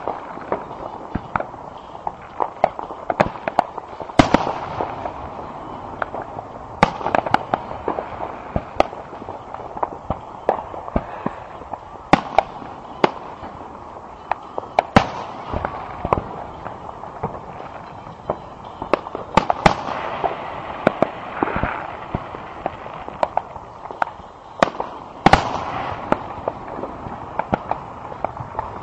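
Aerial fireworks display: shells bursting in sharp bangs at irregular intervals, the loudest a few seconds apart, over a constant background of noise between them.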